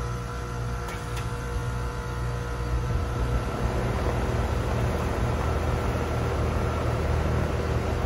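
Steady hum of rooftop air-conditioning equipment with a few faint steady tones, while the packaged unit in view has not yet started. Two faint ticks about a second in, and the hiss grows slightly louder after a few seconds.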